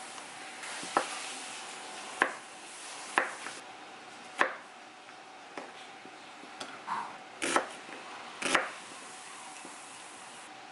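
Kitchen knife slicing Korean zucchini and onion on a wooden cutting board: sharp, separate knocks of the blade hitting the board, about one a second, the strongest near the end.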